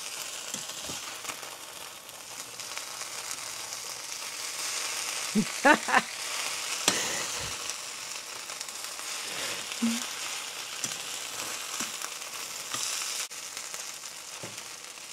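Diced potatoes sizzling as they fry in a stainless steel skillet, with a metal spatula scraping the browned crust off the pan and turning them now and then.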